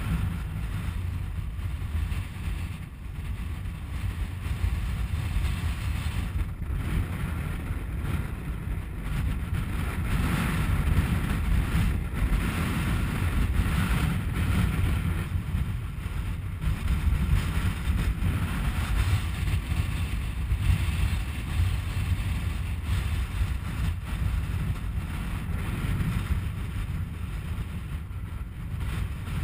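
Wind buffeting the microphone: a steady low rumble that swells and eases in gusts.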